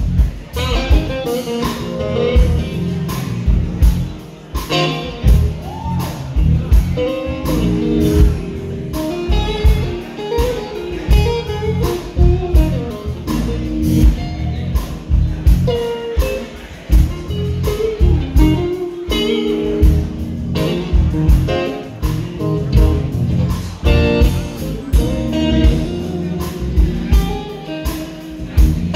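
Live band playing a blues-style number: electric guitar over drums with a steady beat.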